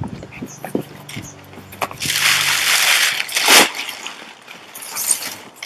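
A cardboard box being unpacked by hand: flaps knocking and crinkly brown kraft packing paper rustled and pulled out, with a long loud crumple from about two to four seconds in and another shorter one near the end.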